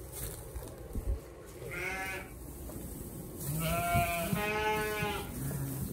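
Rideau Arcott ewes bleating: one bleat about two seconds in, then two longer, wavering bleats back to back near the end.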